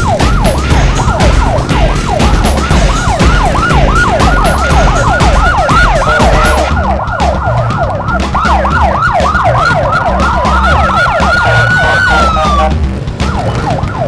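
Police motorcycle siren on its yelp setting, sweeping quickly up and down about three times a second. Near the end it changes to one long tone that rises slowly, then falls away and stops. A steady low rumble runs beneath it.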